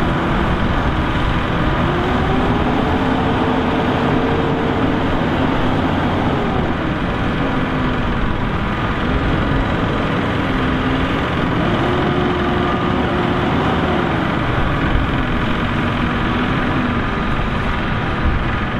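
A Claas Jaguar self-propelled forage harvester chopping maize alongside a Case IH Optum tractor hauling a silage trailer. Heavy diesel engines run steadily under load, with an engine's pitch rising and falling in two long swells.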